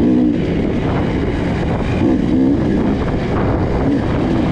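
Trail (dirt bike) motorcycle engine running while riding along a dirt track, its pitch wavering up and down with the throttle, with wind noise on the microphone.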